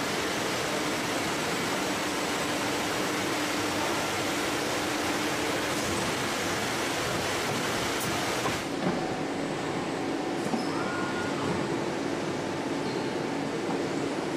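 Steady hum and hiss of automated factory production-line machinery carrying motorcycle cylinder heads, with a few light clicks in the second half.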